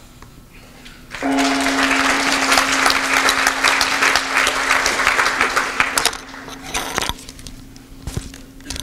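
Audience applauding for about five seconds, starting about a second in. A steady ringing tone starts with the applause and fades slowly. Near the end there are a few knocks from a clip-on microphone being handled.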